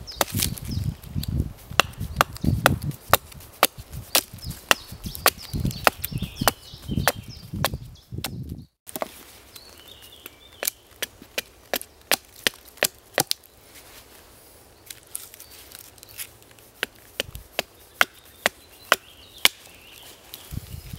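Small axe chopping the end of a bark-on stick into a point on a log: a series of sharp wooden chops, about two a second. A short break in the sound comes a little before halfway, and the chops after it are quieter and more spaced out.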